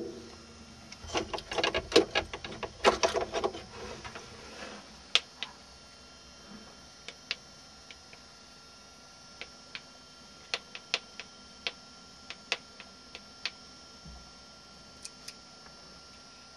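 Small plastic buttons being pressed on a hand-held remote control: a quick flurry of clicks and handling rattle over the first few seconds, then single sharp clicks at irregular gaps as the remote steps through the picture-frame monitor's menus. A faint steady electronic whine runs underneath.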